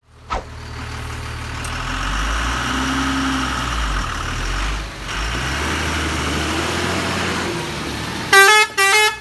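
Tata 1618 4x4 tipper truck's diesel engine running steadily as the truck drives through mud. Near the end its horn sounds two short blasts.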